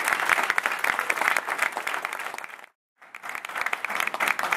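Audience applauding, a dense run of many people clapping. It breaks off to silence for a moment just under three seconds in, then picks up again.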